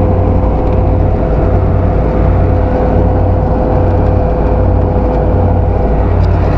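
Lada Niva driving at about 90 km/h, heard from inside the cabin: a steady low drone of engine, drivetrain and road noise with a thin steady whine above it.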